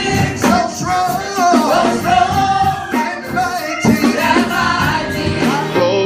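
Gospel vocal group singing live, a man leading with backing voices, over a band with a steady beat. Just before the end it switches abruptly to a different song.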